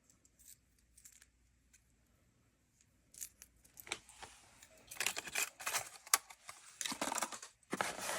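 Plastic tackle packaging being handled: a few light clicks, then crinkling and rustling that starts about three seconds in and grows louder for the last few seconds.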